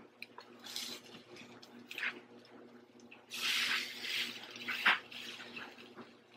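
Spatula tapping and scraping on an electric griddle as French toast slices are flipped, with a short hiss about three seconds in as a slice is turned onto the hot surface.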